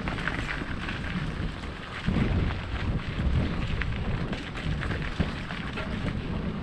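Mountain bike ridden over a rough dirt and rock trail: wind rumbling on the microphone over the noise of the tyres, with scattered sharp knocks and rattles from the bike.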